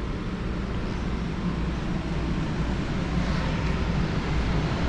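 Steady drone of running mechanical-room equipment: a low rumble under an even rushing hiss, with no distinct knocks or changes.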